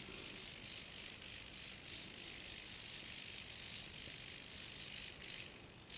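Hexapod robot's 18 Hitec HS-225BB hobby servos whirring in repeated high-pitched bursts as its legs step, with light clicking of the leg joints and a sharp click at the end. The builder takes one of the servos to be about to fail.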